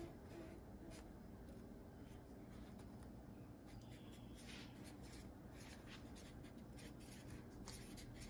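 Felt-tip marker writing and drawing on a small paper note: faint, short, irregular scratching strokes.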